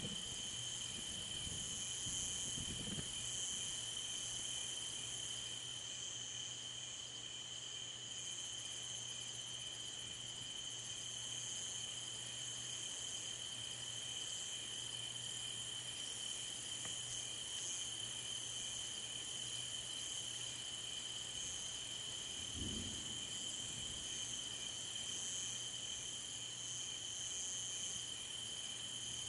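Steady night chorus of crickets and other insects, a continuous high trill. Brief low rumbles come near the start and again about three-quarters through.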